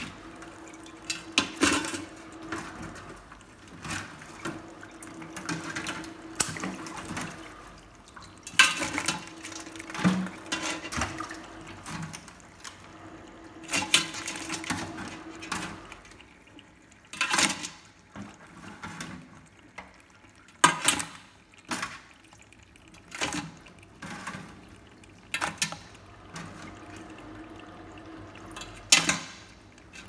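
Irregular clacks and knocks of metal tongs against a stainless steel steamer pot as live blue crabs are lifted from sink water and dropped in, with water dripping and splashing, over a faint steady hum.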